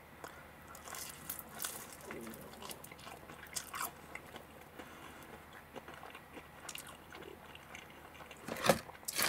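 A person chewing a mouthful of cheese-gratin pizza with a crisp baked crust: soft, irregular crunching and mouth sounds, with a sharper click near the end.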